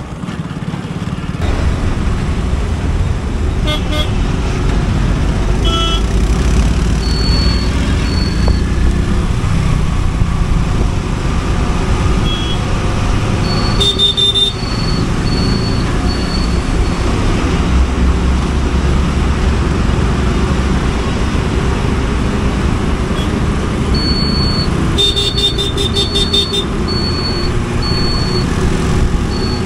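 Motorcycle on the move along a road: a steady low rumble of engine and wind on the microphone, with traffic around. Runs of short high toots sound about halfway through and again near the end.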